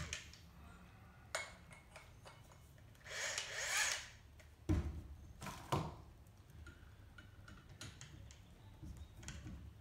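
A cordless drill and a 4-inch hole saw being handled while the hole saw is fitted to the chuck: scattered clicks and light knocks, a scraping rub lasting about a second, then two sharper knocks about a second apart. The drill motor is not running.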